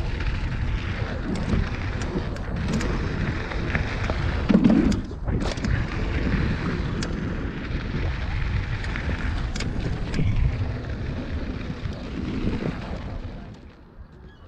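Wind rumbling on the camera microphone and mountain bike tyres rolling over packed dirt, with clicks and knocks from the bike and a loud thump about four and a half seconds in. The noise dies down near the end as the bike slows almost to a stop.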